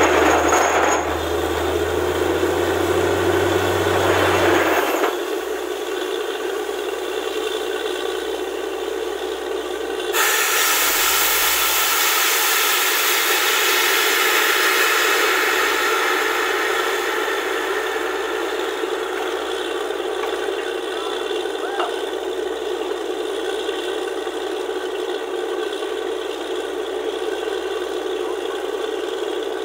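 Borewell drilling rig running with a loud, steady mechanical noise. A deep engine hum under it cuts out about five seconds in, and a sharper hissing rush comes in abruptly about ten seconds in.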